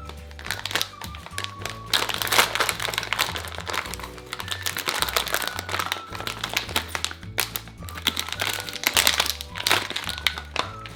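Crinkly plastic wrapping of a surprise toy being torn and unwrapped by hand, in irregular bursts of crackling, over background music with a steady stepping bass line.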